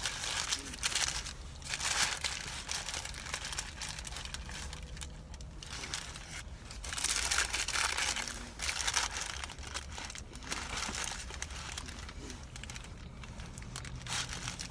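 A paper fast-food sandwich wrapper crinkling in several bursts as it is handled, with chewing between bites of a sandwich.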